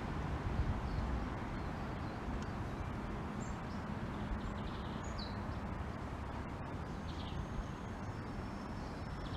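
Light rain falling: a steady, even hiss over a low rumble, with a few faint short high chirps in the middle.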